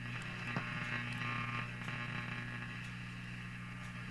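Silvertone Model 6050 tube radio receiving an AM station through its speaker, the broadcast faint under static and a steady low hum. The hum comes from failing filter capacitors.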